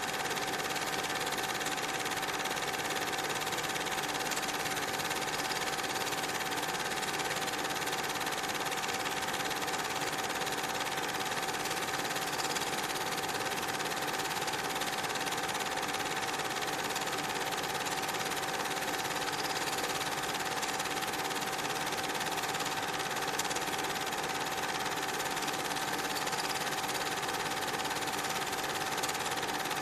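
Steady mechanical running hum with hiss and a constant mid-pitched tone, unchanging.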